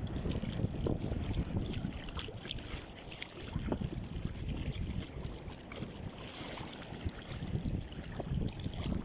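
Wind blowing on the microphone over water sloshing and splashing around a small boat at sea, an uneven rumbling noise with faint crackles.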